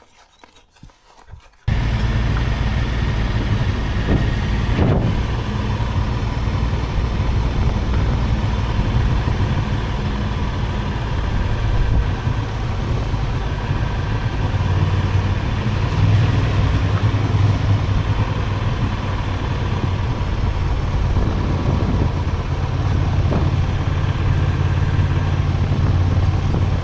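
Honda XL750 Transalp's parallel-twin engine running steadily as the motorcycle rides along a lane, a low even drone. It cuts in suddenly about two seconds in, after a quieter start.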